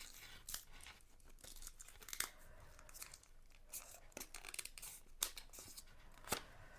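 Faint rustling of a thin paper sleeve being worked off a deck of tarot cards, with a few short, sharper crackles spread through it.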